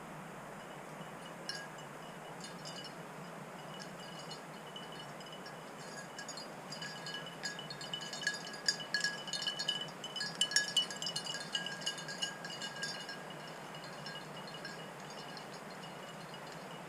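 Small bell on a hunting dog's collar jingling irregularly as the dog moves, busiest about halfway through and thinning out near the end, over a faint steady hiss.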